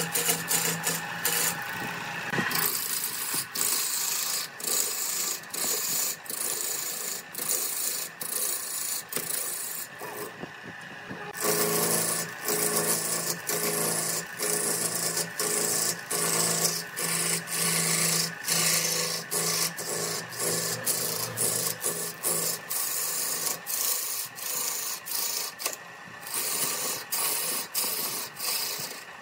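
Gouge cutting into a large block of wood spinning on a lathe: a continuous rough rasping hiss of shavings being peeled off, broken by short dips and a brief lull about a third of the way in as the tool eases off the wood, with a low steady hum from the lathe underneath.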